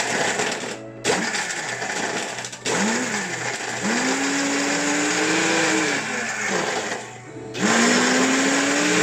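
Electric blender running at high speed, crushing ice with milk and chocolate malt powder for a frappe. Its motor whine rises in pitch as it speeds up, dropping out briefly about a second in and again about seven seconds in before starting up again. It is loud.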